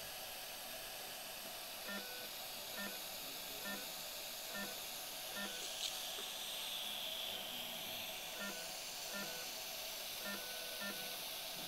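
Short electronic beeps from endoscopy-room medical equipment, repeating about once a second with a pause partway through, over a steady hiss.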